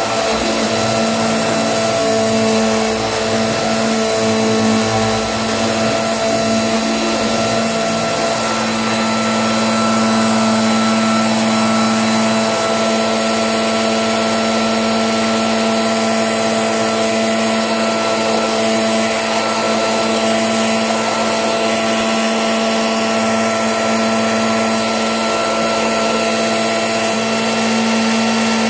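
Electric motor running steadily and loudly without a break: a constant hum with a whine over a rushing noise.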